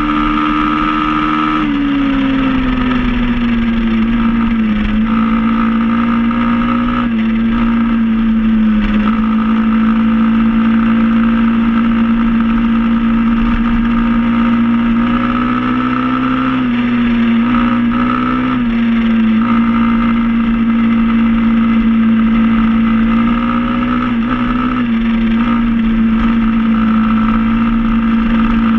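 SSR 110 pit bike's single-cylinder four-stroke engine running at a steady cruising speed. Its pitch drops about two seconds in, then holds level with several brief dips as the throttle eases and comes back on.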